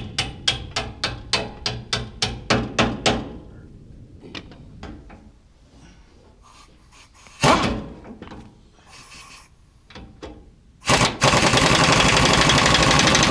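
Hammer blows on metal, about four a second, for the first three seconds. Near the end a pneumatic impact wrench runs in one loud, continuous rattle of nearly three seconds.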